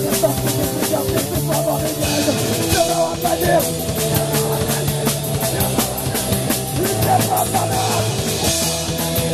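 Street punk band playing live: a fast, even drum beat under distorted electric guitars and bass, with cymbal crashes about two seconds in and again near the end.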